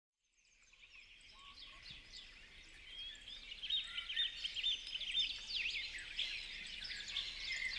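Chorus of songbirds chirping and twittering, many overlapping high calls fading in about a second in and growing louder.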